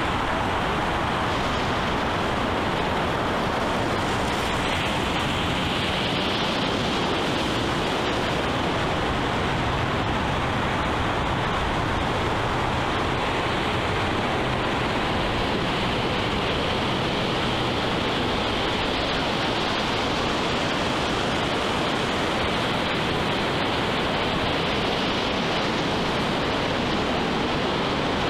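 Ocean surf washing over shoreline rocks: a steady, unbroken rushing noise.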